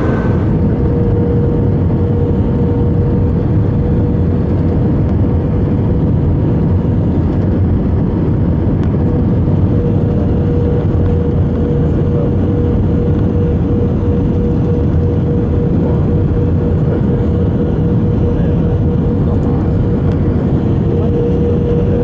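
Steady cabin roar of an Airbus A319-111 in flight, the engine and airflow noise heard from a window seat while descending low over the city on approach, with a steady tone running through it.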